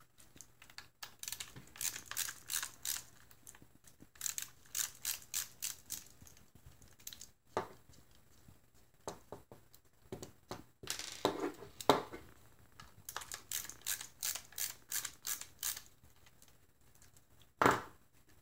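A hand screwdriver backing Torx T10 screws out of a plastic battery-pack case, heard as runs of quick clicking at about three to four clicks a second, in several bursts. A single louder knock comes near the end.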